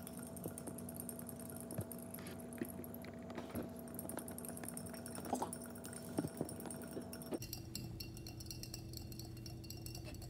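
Metal spoon stirring sugar into hot water in a glass mason jar, giving light, irregular clinks against the glass as the sugar dissolves.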